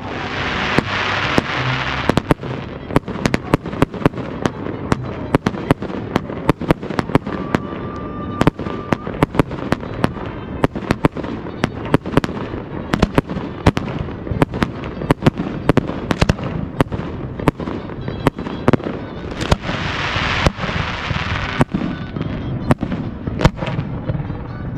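Fireworks display: a rapid, continuous barrage of sharp bangs from bursting aerial shells, several a second. Two stretches of dense hiss, one at the start and one about twenty seconds in, rise over the bangs.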